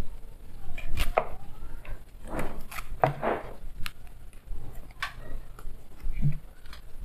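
Knife cutting and scraping the spines off a nopal cactus paddle, with irregular clicks and short scrapes against a cutting board.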